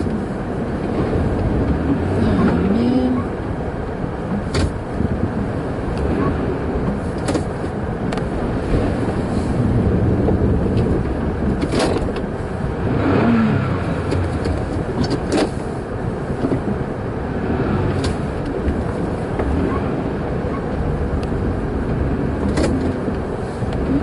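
Car engine revving and tyres spinning in packed snow, heard from inside the car, as the stuck car is rocked back and forth to drive it free. A few short knocks come now and then.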